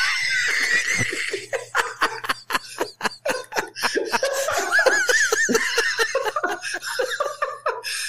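Men laughing heartily: a long fit of laughter in quick, repeated bursts.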